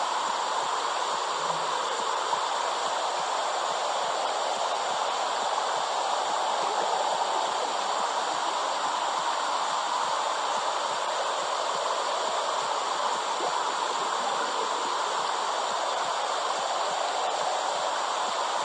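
Steady whooshing womb-sound noise, an even hiss with no beat or rhythm, of the kind played to soothe crying and colicky babies.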